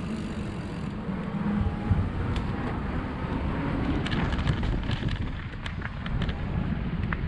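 Mountain bike ridden along a forest trail from a wooden boardwalk onto dirt: a steady low rumble of tyres and wind on the ride camera's microphone, with scattered clicks and rattles of the bike over bumps from about two seconds in.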